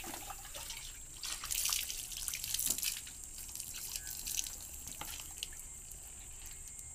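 Water poured from a mug over a dog's wet fur, splashing and dripping onto the ground while a hand rubs the coat. It swells twice, about a second and a half in and again near three seconds.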